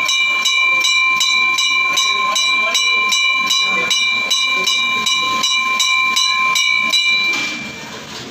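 A temple bell rung rapidly and continuously, about four strikes a second, its tone ringing on between strikes. The ringing stops about seven seconds in.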